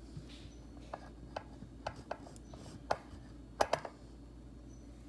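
A few light, scattered clicks and knocks from things being handled on a kitchen counter, the loudest two close together about three and a half seconds in, over a steady low hum.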